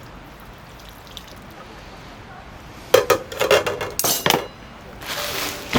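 Utensils and dishes clinking in a quick run of sharp knocks about three seconds in, after a quiet stretch. Background music comes in near the end.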